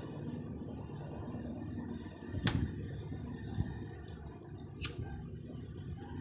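Tabletop handling noises over a steady low hum: a knock about two and a half seconds in, then a single sharp click near the end as a plastic disposable lighter is struck.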